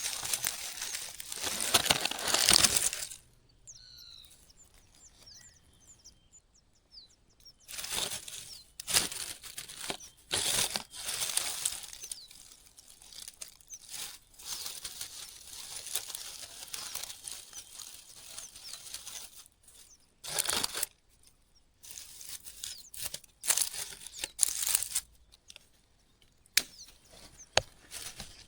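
Irregular bursts of rustling and crinkling, like leaves, twigs or wings being disturbed, with a few faint high chirps in a quieter stretch a few seconds in.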